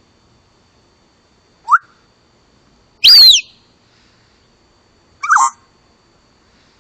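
Parrot calls, three separate ones: a short rising whistle, then a loud call sliding down in pitch about three seconds in, and a shorter call a couple of seconds later. A faint steady high tone hums underneath.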